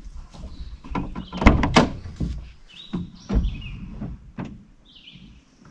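A series of knocks, clunks and rubbing from movement and handling inside a van, with a low rumble under them; the loudest knocks come about a second and a half in and again about three and a half seconds in, then it dies down.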